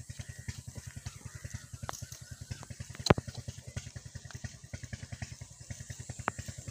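20 HP single-cylinder diesel engine running at a steady, low idle, with an even beat of about ten thuds a second. There is one sharp metallic click about three seconds in.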